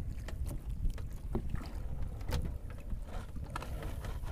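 Wind rumbling on the microphone over water lapping against a small outrigger boat, with scattered light knocks and clicks.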